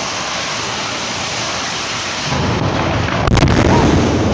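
Burning oxygen station blowing up, recorded on a phone: a steady rushing noise, then about two seconds in a deep rumbling boom sets in, with a sharp crack about a second later.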